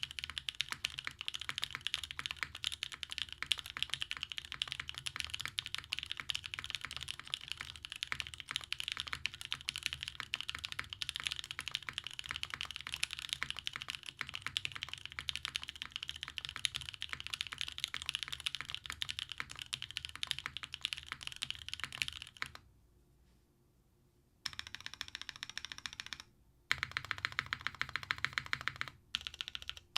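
Mechanical keyboard with Gateron Cream Soda switches on a carbon fiber plate, no dampening, and GMK keycaps, being typed on fast in a steady stream of key clacks. About two-thirds of the way through the typing stops for a couple of seconds, then resumes in shorter runs with brief pauses.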